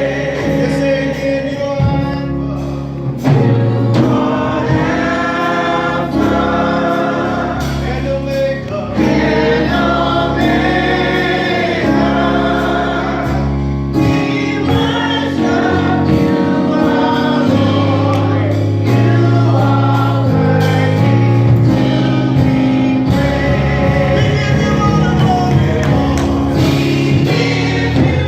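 A church choir singing a gospel song with full accompaniment and a steady beat.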